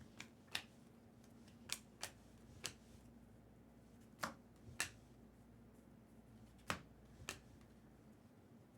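Bowman baseball cards being flicked through and snapped down one by one: faint, sharp clicks every second or so, often in pairs.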